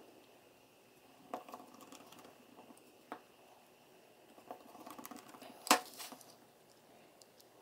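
Faint scattered clicks and taps of a small precision screwdriver and parts being handled on a plastic device case, with one sharper click about three quarters of the way through.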